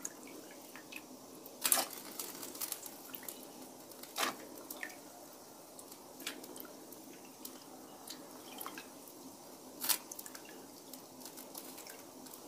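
Water bubbling at the boil in a large aluminium wok as sliced carrots are dropped in by hand, with sharp plops and splashes, the loudest about two, four and ten seconds in.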